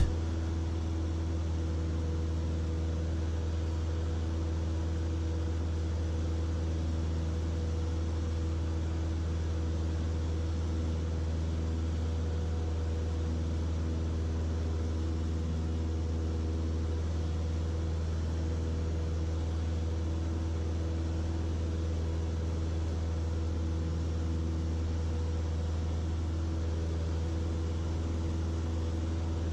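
The Cessna 152's Lycoming O-235 four-cylinder engine and propeller drone steadily in the climb, heard from inside the cockpit. A strong low hum with a few steady higher tones holds at an even level throughout.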